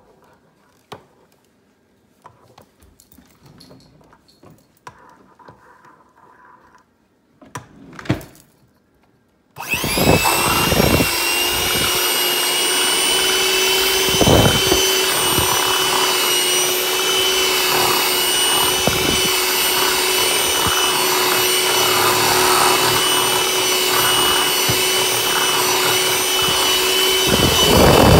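After a few faint knocks, an electric hand mixer switches on about a third of the way in. It runs steadily at speed with a steady whine, its beaters whipping key lime pie filling in a glass bowl.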